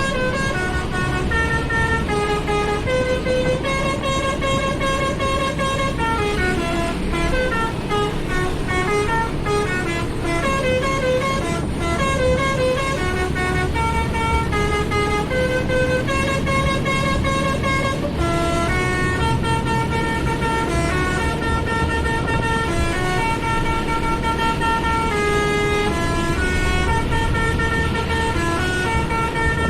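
Basuri musical bus horn playing a continuous melody of stepped notes, each held for a fraction of a second, over a low rumble.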